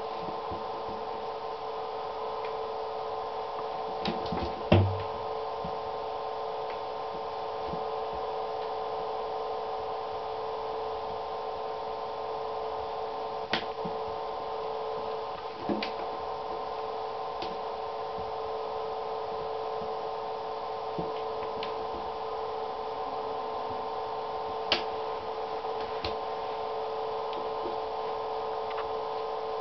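Steady hum of several tones, with scattered light clicks and knocks from a kitten's paws and a toy mouse on an empty acrylic bathtub. The loudest is a thump about five seconds in.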